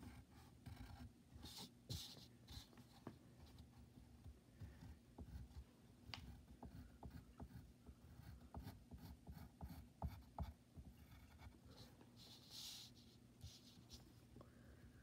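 Faint pencil strokes scratching on paper, short and irregular, with small ticks of the pencil tip and a few longer, brighter strokes about two seconds in and near the end.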